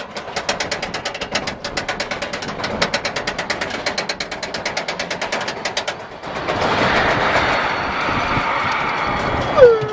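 Roller coaster lift-hill chain and anti-rollback ratchet clattering at about seven clicks a second. The clicking stops about six seconds in as the train crests, and a steady rush of wind takes over as it drops. Near the end comes a brief loud scream, the loudest sound.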